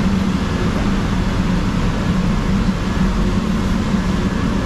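Loud, steady machinery hum and rumble with a constant low drone.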